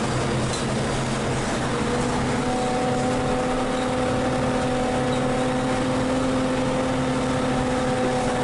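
Cabin sound of a Volvo B12M bi-articulated city bus under way: a steady engine and drivetrain rumble, with a whine that sets in about two seconds in and holds.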